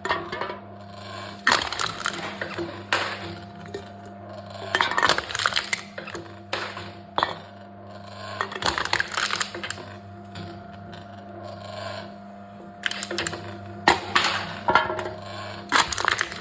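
Aluminium drink cans being crushed by a machine: irregular bursts of crackling, crumpling metal and clinks every second or two, over a steady low machine hum.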